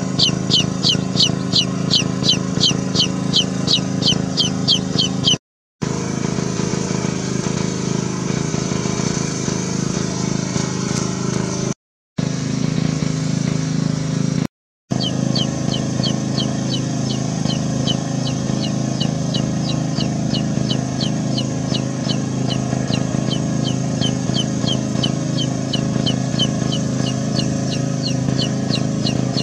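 A chick peeping repeatedly, about three short falling peeps a second, the distress calling of a chick separated from its flock. The peeps stop for about ten seconds in the middle and then resume, over a steady low hum throughout.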